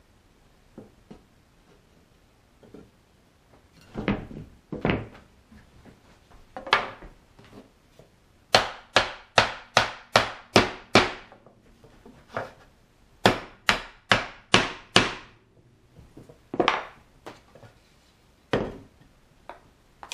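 Hardwood chair legs and stretchers being struck to seat them in their sockets during assembly: a series of sharp wooden knocks, with a quick run of about eight around the middle and a shorter run of about five after it.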